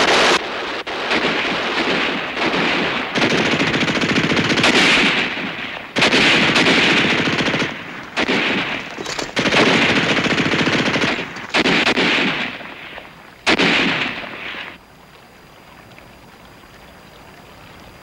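Long bursts of machine-gun fire with short breaks between them, stopping about fifteen seconds in.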